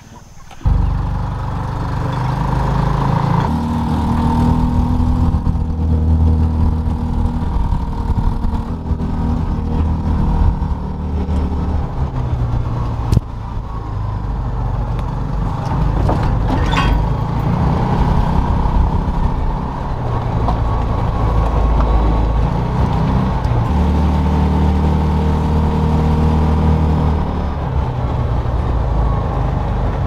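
Engine of a small vehicle running as it drives along, a steady low drone whose pitch steps up and down a few times with changes in speed.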